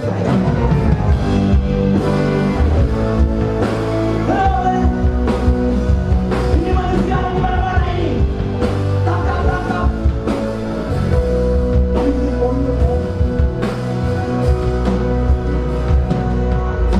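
Rock band playing a song, with a man singing lead over drums, bass and guitars; it cuts in suddenly at the start.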